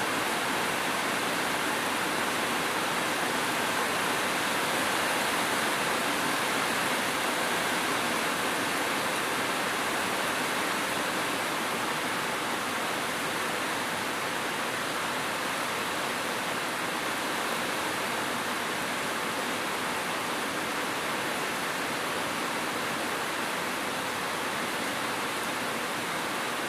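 Steady rain falling, a dense, even hiss with no individual drops standing out.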